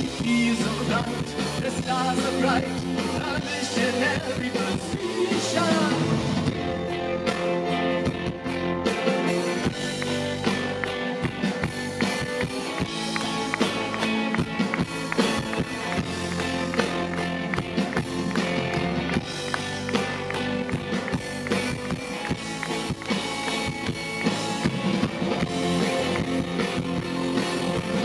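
A live rock band playing through a festival PA, with electric guitar, drums and keyboards, as heard from the audience.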